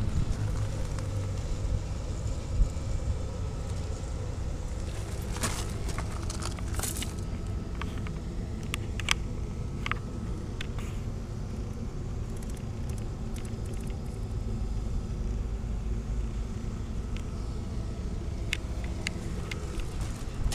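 Kubota D1703 three-cylinder diesel engine of a Kubota SQ3170 generator running steadily at its governed 1800 rpm, a constant low drone. A few sharp clicks come through it in the middle and again near the end.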